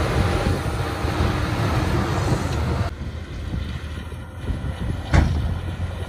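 Shantui DH17 C2 bulldozer's diesel engine running hard while the blade pushes soil and stone, a dense rumbling machine noise. About three seconds in the sound drops suddenly to a quieter, more distant rumble, with one sharp knock near the end.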